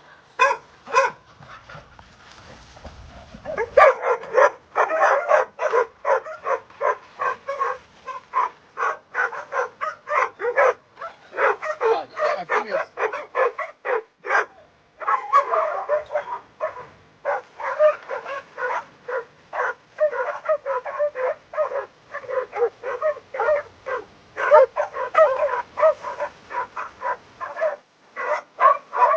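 Dogs barking and yipping in a rapid, almost unbroken run of short barks, picking up about four seconds in.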